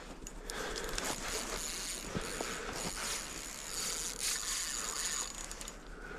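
Small spinning reel ratcheting as line slips off the drag under a fish's pull. The drag is set too loose on what is called a faulty reel.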